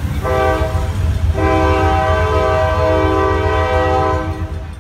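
Diesel freight locomotive's air horn blowing at a street grade crossing: a short blast, then a long held blast that fades out near the end, over the low rumble of the passing train.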